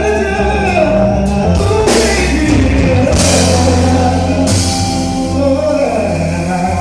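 A live band playing during a sound check: steady bass and drums under pitched melodic lines, with three cymbal crashes spaced about a second and a half apart through the middle.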